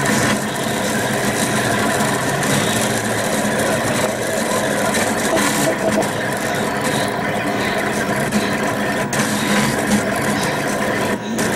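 Rostock delta 3D printer printing, its stepper motors whirring and buzzing continuously as the hotend moves across the layer, the tones shifting as the moves change.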